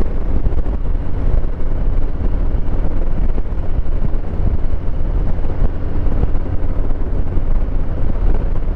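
Harley-Davidson Heritage Classic's Milwaukee-Eight 114 V-twin running steadily while riding, mixed with wind rushing over the microphone.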